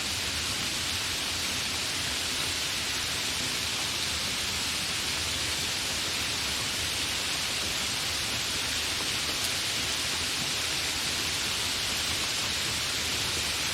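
Continuous steady rain, an even hiss with no thunder or distinct drops standing out.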